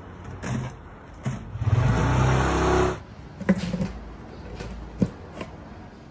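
Chunks of stem tipped from a metal strainer into a bamboo steamer basket, a loud rustling clatter lasting about a second and a half. Then an aluminium steamer lid is set down with a short metallic clank, followed by a single sharp tick.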